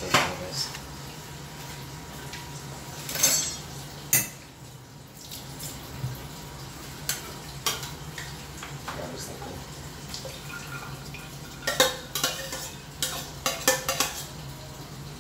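Cookware and utensils clinking and clattering as a pot on the stove is handled and ingredients are tipped into it from a bowl, with a quick run of clinks near the end. A steady low hum runs underneath.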